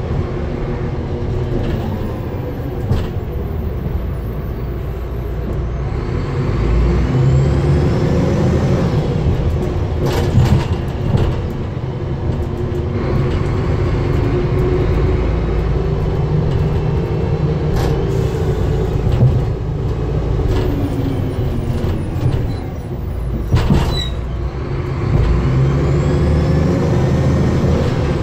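DAF DB250LF double-decker bus's diesel engine worked hard under way, heard from the upper deck: its note climbs and drops several times as it accelerates and changes gear. A few sharp knocks come from the body now and then.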